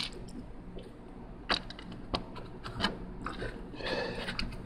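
Small plastic Lego pieces being handled, giving a few scattered light clicks and a short bit of rattling near the end.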